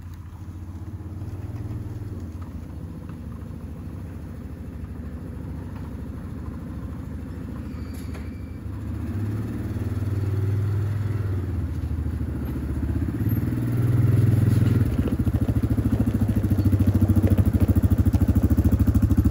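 Yamaha Wolverine R-Spec side-by-side's engine running, growing louder toward the end.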